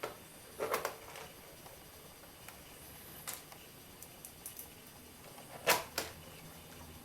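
Screwdriver and small screws being refitted into a laptop's plastic case: scattered clicks and taps, a short cluster about a second in and the loudest knocks near the end.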